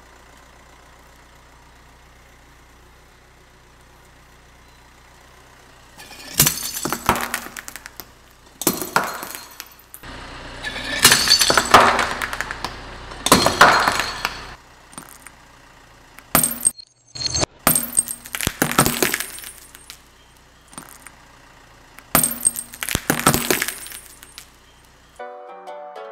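Car tyre crushing brittle ceramic objects on a concrete floor: repeated loud crunching and cracking with shards clinking and scattering, in several bursts. These come after a few seconds of faint steady hum.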